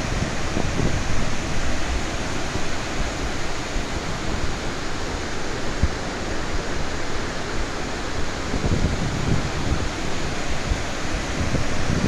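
Athirappilly Falls in heavy flow after rain: a large waterfall giving a steady, unbroken rush of falling water, with gusts of wind buffeting the microphone now and then.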